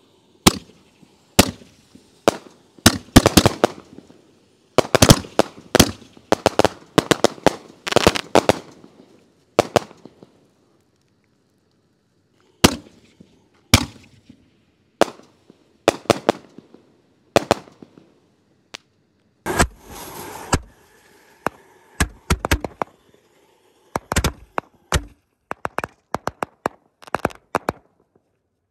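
A volley of triple-break aerial artillery shells: a string of sharp booms as the shells launch and burst, coming in clusters with a gap of a couple of seconds near the middle. About two-thirds through there is a second-long hiss with a high whine, then a quick run of smaller bangs.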